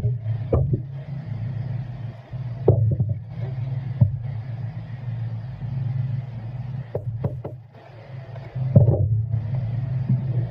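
A steady low mechanical drone runs throughout, with scattered light clicks and knocks as a metal weatherhead and its service cable are handled and the weatherhead's clamp is worked with a screwdriver.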